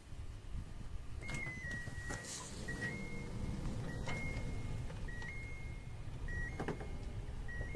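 Power sliding door and retractable universal step of a 40-series Toyota Alphard moving: a motor hum with clicks and knocks, and a high tone that keeps stepping between two close pitches. This is the abnormal noise the owner suspects comes from a stone caught in the step.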